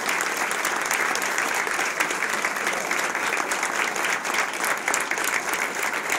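Congregation applauding: many hands clapping in a dense, steady stream.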